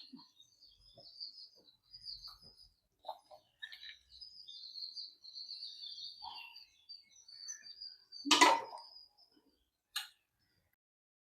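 Small birds chirping and twittering in the background, thin and high. A short loud clatter comes about eight seconds in and a sharp click near ten seconds.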